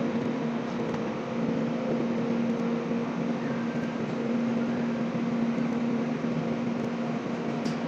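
Steady machinery hum with a constant hiss and a low steady tone running through it, with a couple of faint clicks near the end.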